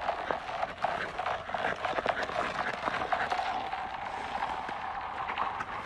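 Ice skates scraping and clicking on a frozen pond's ice, many short clicks over a steady hiss.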